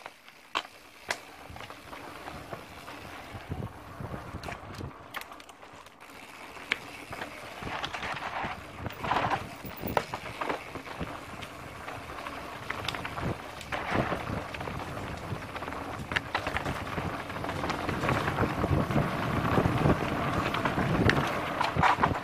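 Mountain bike rolling fast down a dirt trail: tyres rumbling over dirt and stones, the bike rattling with frequent sharp knocks, and wind on the microphone. It grows louder through the second half as the bike gathers speed.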